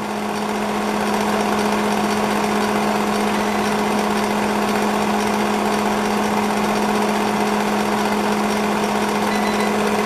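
Gold 'N Hot Elite commercial bonnet hair dryer running on low fan and low heat. Its blower gives a steady rush of air over a constant motor hum.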